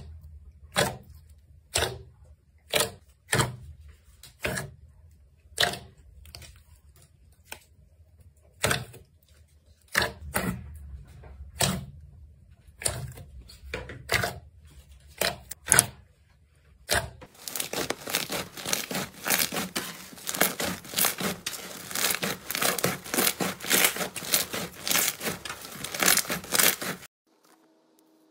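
Pink foam slime being poked and squeezed by hand, giving separate sharp wet pops about once a second. A little past halfway, these give way to dense, rapid crackling from slime for about ten seconds, which stops suddenly.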